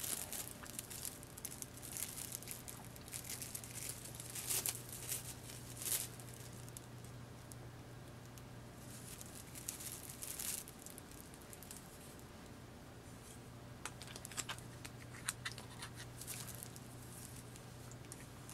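Plastic cling wrap crinkling and rustling as it is handled and folded around a small vise, in irregular spells with quieter gaps in between. A faint steady low hum runs underneath.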